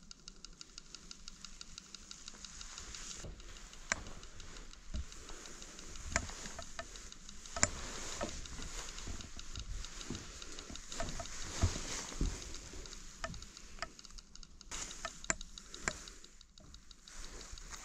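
Footsteps, knocks and rustling of someone moving over debris and through brush, with scattered sharp clicks, over a faint fast even ticking.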